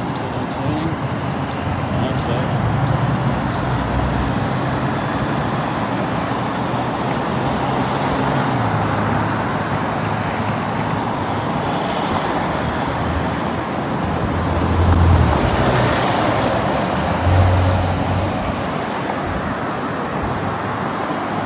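Road traffic and wet-road hiss heard while riding in the rain, a steady noisy wash with a low hum underneath; vehicles swell past twice in the second half.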